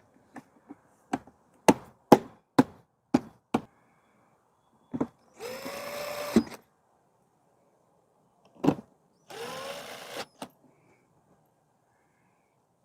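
Plastic generator side cover clicking and knocking into place, about eight sharp clicks, then a power screwdriver running in two short bursts of about a second each, its motor spinning up and holding, as the cover screws are driven back in.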